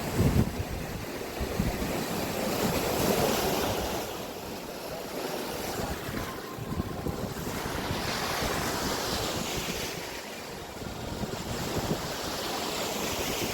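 Ocean surf breaking on a beach, with wind rumbling on the microphone; the wash of the waves swells and eases slowly, growing louder twice.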